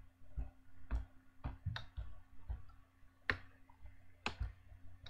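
Irregular clicks of a computer mouse, about two a second, two of them sharper past the middle, as the PDF is scrolled and zoomed.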